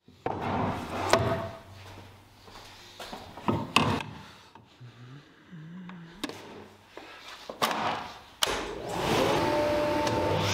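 Clacks and knocks of a table saw's rip fence and wood being set up, then a Powermatic cabinet table saw switched on about eight seconds in, its motor coming up to speed and running steadily with a hum.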